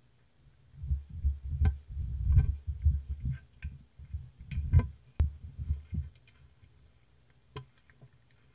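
Cat eating canned food off a clear plastic box over the camera: irregular low thuds and sharp clicks as its mouth and tongue work against the plastic, for about five seconds, then a couple of lone clicks near the end.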